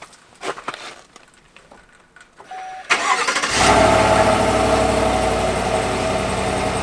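A few light knocks, then a vehicle engine cranks and starts about three seconds in and settles into a steady idle.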